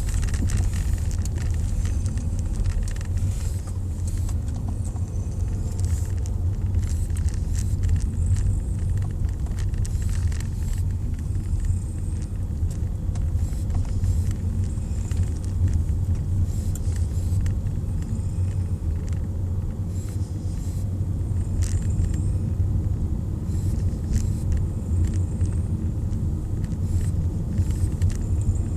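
Steady low rumble inside a moving truck, with small rattles and clicks throughout.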